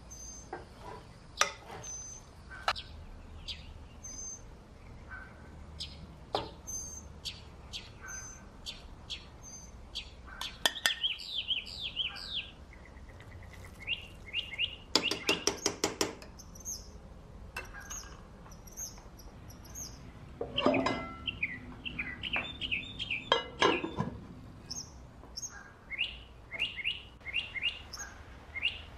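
Songbirds chirping and calling over and over, short sweeping notes repeated in quick runs, with a loud rattling run of notes about halfway through. Light clinks and scrapes of a spoon stirring rice in a metal pot come in between.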